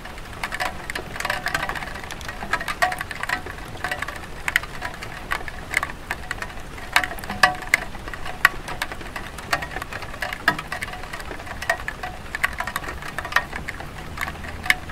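Light rain falling on a clay tile roof, with many irregular drops and drips tapping sharply over a steady hiss of rain.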